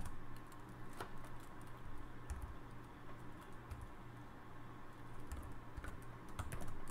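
Slow, irregular keystrokes on a computer keyboard as a short command is typed, faint over a low steady hum.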